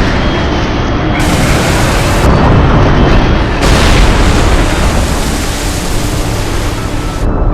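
Loud, continuous explosion-like booming rumble, heavy in the low end, with its hiss switching on and off abruptly several times.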